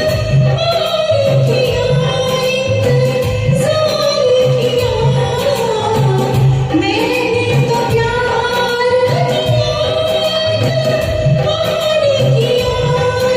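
A woman singing a Hindi film song over a recorded backing track with a steady bass and percussion beat.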